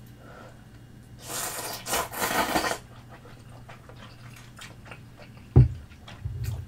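Udon noodles being slurped in a long, noisy draw about a second in. Chewing and small clicks follow, then a sharp low thump near the end.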